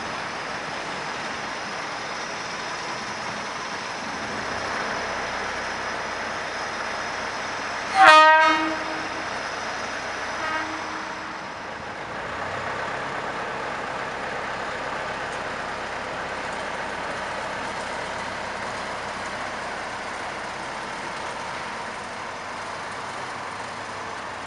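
Small steam locomotive's whistle, from a Kerr Stuart Wren-class tank engine, giving one loud short toot about eight seconds in and a brief fainter one about two seconds later, over steady background noise.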